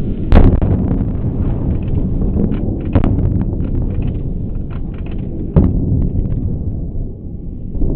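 Demolition charges going off in the implosion of a 1914 concrete grain elevator: a sharp bang about a third of a second in, then two more, about three and five and a half seconds in, over a steady low rumble.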